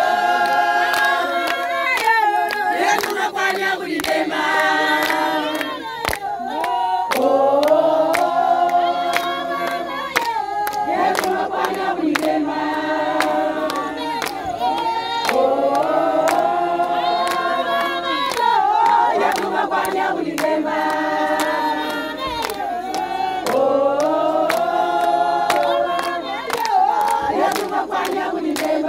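A group of women singing a welcome song together in repeated phrases of a few seconds each, over steady rhythmic hand clapping.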